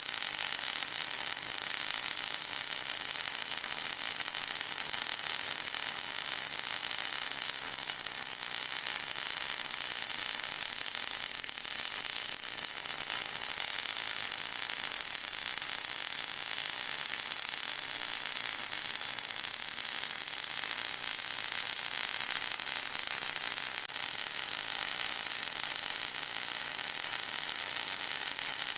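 Steady high-pitched hiss of a white-noise track made for masking tinnitus.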